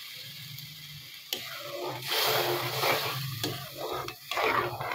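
A metal slotted spoon stirring a thin sauce with chopped onion and capsicum in a metal pot. There are several irregular scraping, sloshing strokes, starting about a second in and loudest from about two seconds, over a low steady hum.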